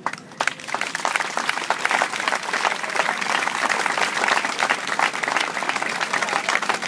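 Audience applauding: many hands clapping, starting suddenly and keeping up steadily.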